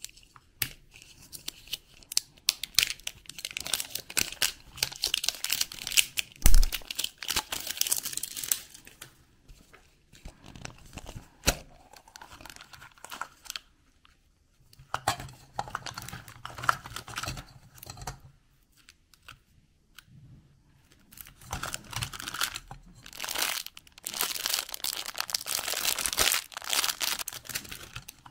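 Crinkling and tearing of plastic wrap and cellophane wrappers being peeled and handled close to the microphone, in spurts with quiet pauses between. A single sharp knock about six and a half seconds in is the loudest sound, with a crisp click a few seconds later.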